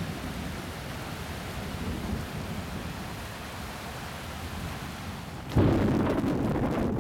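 Steady hiss of rain, then a sudden loud clap of thunder about five and a half seconds in that keeps rumbling.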